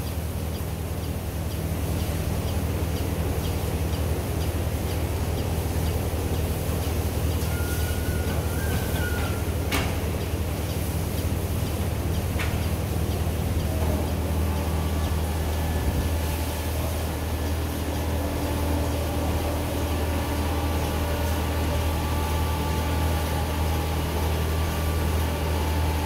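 Milking parlour machinery running with a steady low hum, with a couple of sharp clicks about ten and twelve seconds in.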